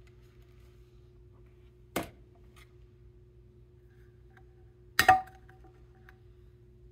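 Two sharp metallic clinks of a steel food can being handled on a granite countertop, about three seconds apart. The second is louder, with a short ring, over a faint steady hum.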